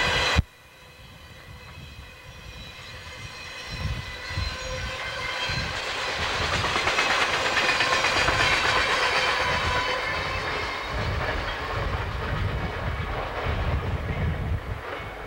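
A train rolling past at speed: the wheels rumble and click over the rail joints, building up to their loudest a little past the middle and staying loud as the cars go by. A different, louder passing sound cuts off abruptly about half a second in.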